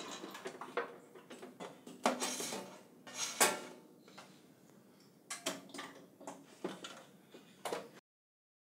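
Handling noise as a robot connection cable is pulled through a metal cabinet and its connector fitted into the control box: rustling, a sharp click about three and a half seconds in, then a run of light clicks and knocks that stops dead near the end.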